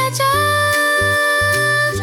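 Children's song music: one long held note over a bass line that drops out and comes back several times.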